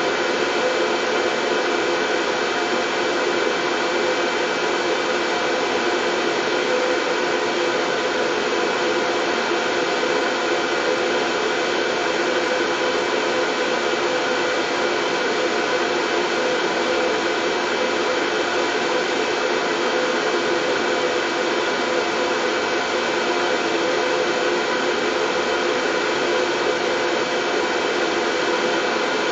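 Steady, unchanging white noise with a few faint steady tones running through it, a soothing sound for colicky babies.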